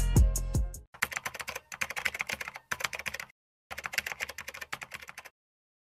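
Rapid clicking of computer-keyboard typing, a sound effect for on-screen text being typed out. It comes in two quick runs of a second or two each, with a brief pause between, after a drum-backed music track fades out in the first second.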